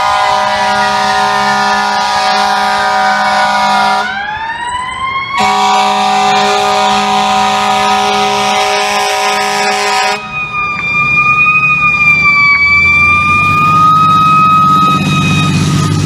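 FDNY ladder truck responding, blasting its air horns in long steady chords while its siren winds down in pitch. About four seconds in the horns pause and the siren winds back up. The horns stop about ten seconds in, leaving the siren sounding over the rumble of the truck's diesel engine.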